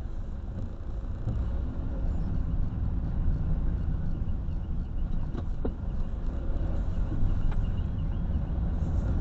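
Engine and tyre noise of a van driving slowly, heard from inside the cab as a steady low rumble, with a couple of faint clicks about halfway through.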